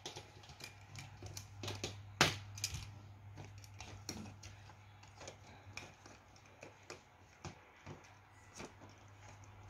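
Light clicks and taps of plastic toy pieces being handled and set down on a metal tabletop, with one sharper knock about two seconds in, over a steady low hum.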